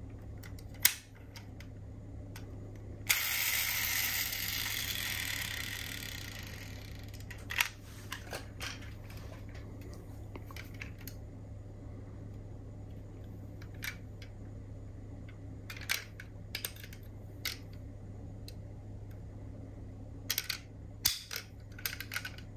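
Scattered clicks and light taps from diecast metal model cars being handled. About three seconds in a rushing noise starts suddenly and fades over a few seconds, all over a steady low hum.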